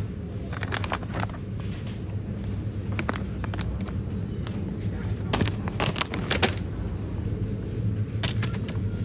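Convenience-store background: a steady low hum with scattered light clicks and rustles, in small groups, as items on the shelf and the shopping basket are handled.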